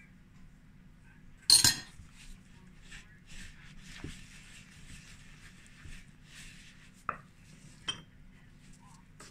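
A metal spoon clatters against a bowl about a second and a half in, then a wooden spoon scrapes and stirs flour, egg and melted butter in a plastic mixing bowl, with two sharp knocks near the end.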